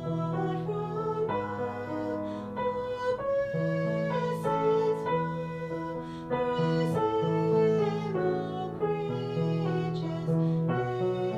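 Instrumental hymn music played on a keyboard: slow, sustained chords moving under a melody line.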